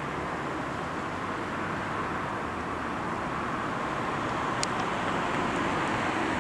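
Steady rushing noise of road traffic, slowly growing louder, with a couple of faint clicks about two thirds of the way in.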